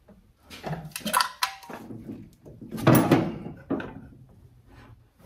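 Clunks and rattles of hand tools and wiring being worked loose in a car's engine bay. The loudest clatter comes about three seconds in.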